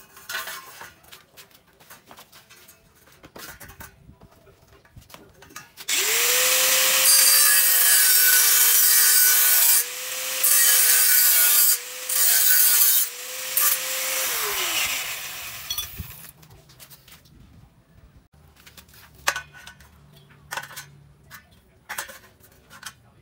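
Angle grinder switched on about six seconds in, its disc grinding on square hollow steel tube for about eight seconds, the motor pitch sagging briefly twice as the disc bites, then switched off and winding down. Scattered light knocks from the steel tubes being handled come before and after.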